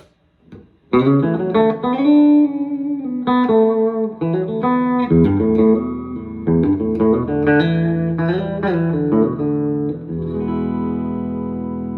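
Electric guitar on its middle pickup, played through a buffered output: a picked phrase with string bends, starting about a second in and ending on a chord that is left to ring.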